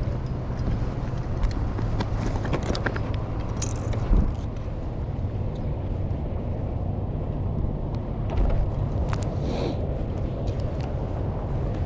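An engine idling steadily in a low hum, with scattered small clicks and rustles of handling over it.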